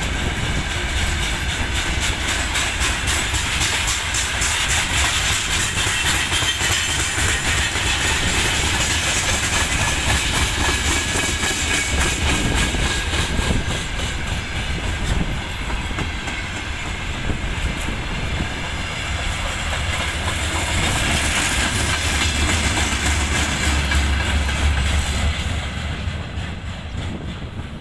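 Freight train wagons rolling past, their wheels clattering over the rail joints with a steady rumble. The sound fades near the end as the last cars go by.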